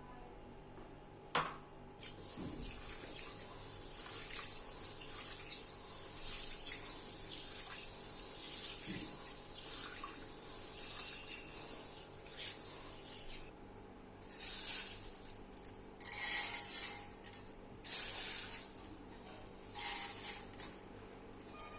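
Water running from a kitchen tap into a sink for about eleven seconds, then in several short spurts, with light dish and utensil knocks.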